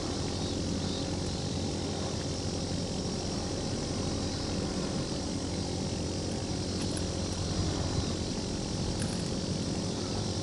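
Steady low engine drone, a continuous hum with no change in pitch, over a soft even hiss.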